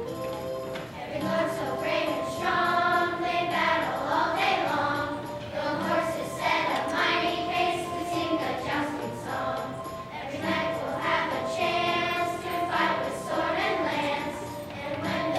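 Elementary school children's choir singing a song with instrumental accompaniment.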